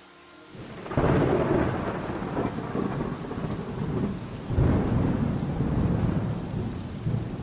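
Thunderstorm sound effect: thunder breaks suddenly about a second in and again around four and a half seconds, with steady rain throughout.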